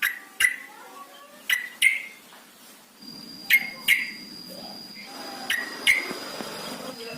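Yellow-vented bulbul giving short, sharp call notes in pairs, a pair about every two seconds, over a steady thin high tone in the background.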